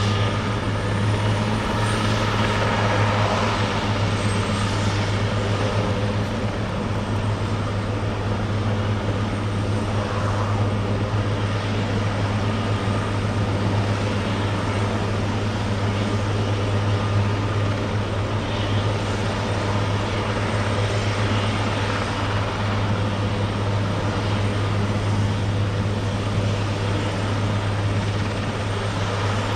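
Eurocopter AS332L1 Super Puma helicopter, twin turboshaft engines and rotors running. It is a steady, loud rotor and turbine noise with a strong low hum that holds level throughout.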